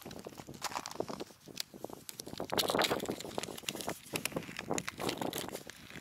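Plastic tackle packets crinkling and rustling as hands dig through a mesh bag of lure packs and handle a plastic sinker pouch, a busy run of crackles that is loudest about two and a half to three seconds in.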